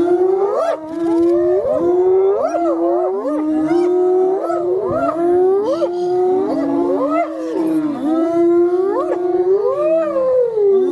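A chorus of wild animals calling over one another: several voices holding steady notes, broken by many rising and falling howling glides.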